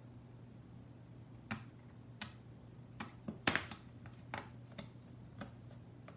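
Irregular clicks and taps of a FrSky X-Lite transmitter's plastic shell parts being handled and fitted together during reassembly, loudest in a quick cluster about halfway through. A low steady hum lies underneath.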